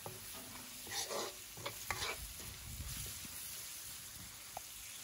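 Metal ladle stirring and scraping chicken pieces, tomato and onion around a wok, with a few louder scrapes, over a faint sizzle of frying as the chicken cooks in its own juices without added water.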